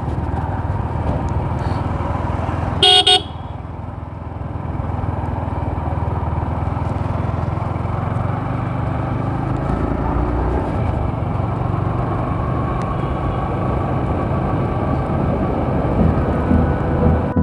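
Motorcycle running steadily at low road speed with a continuous engine rumble; a horn gives one short, loud honk about three seconds in.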